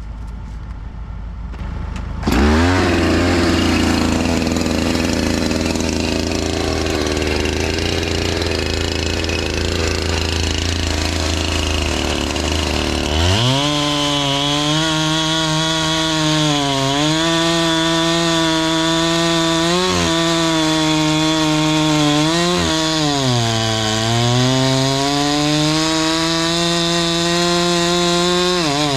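Husqvarna 390XP two-stroke chainsaw with a 3-foot bar running at full throttle, cutting through a large willow trunk. It comes in loud about two seconds in, and through the second half the engine pitch repeatedly sags and recovers as the chain loads up in the cut.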